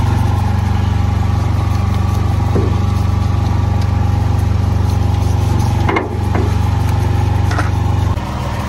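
An engine running steadily with a low, even hum, and a few brief knocks over it about six seconds in. Near the end the hum changes and drops in level.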